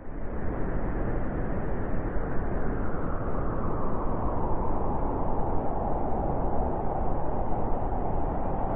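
Steady, gusting winter wind noise, a full, rumbling rush that rises quickly at the start and then holds even.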